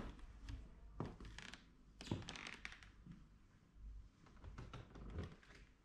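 Slow footsteps on a tiled floor: soft knocks and taps about a second apart, the loudest three in the first half, over a low room hum.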